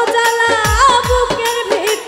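Bengali Baul folk song: a woman's voice holds a long sung note that wavers about halfway through, over band accompaniment with steady hand-drum strokes.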